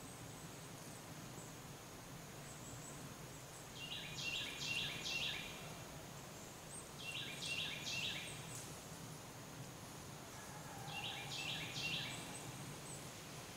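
A songbird singing three short phrases of quick repeated high notes, a few seconds apart, over a faint steady high hiss of woodland background.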